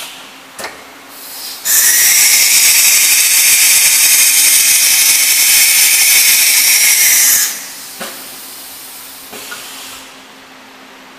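Compressed air hissing at the spindle of a CNC engraving machine as it changes tools at its tool rack: a few short puffs, then a loud steady blast for about five seconds, then weaker hissing with two small puffs that fades out. A faint steady machine hum runs underneath.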